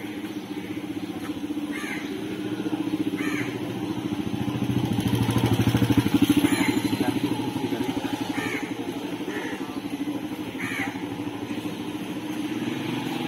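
A motor engine running with a fast, even pulse, swelling to its loudest about six seconds in and easing off again, while a bird gives about six short calls.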